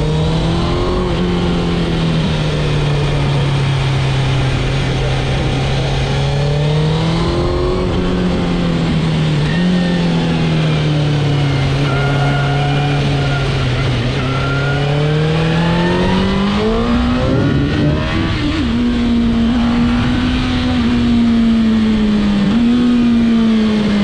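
2002 Suzuki GSX-R1000's inline-four engine on the move, heard from the rider's helmet. The engine note holds steady, then rises with the throttle several times, including one long climb about two-thirds of the way in. That climb is followed by a brief break, after which the note settles higher and falls away near the end.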